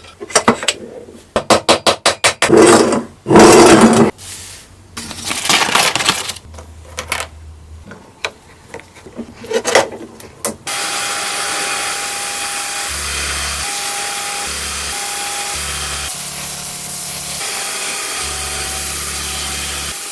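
Hand tools working on the toy truck's steel body: a run of quick sharp taps and several longer scraping strokes. About ten seconds in, a steady hiss takes over.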